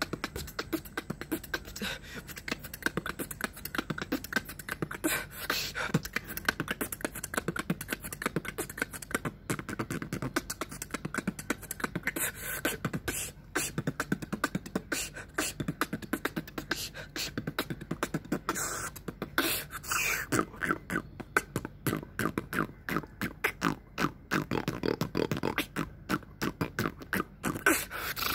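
Solo human beatboxing freestyle: fast, rhythmic mouth percussion throughout, including lip rolls.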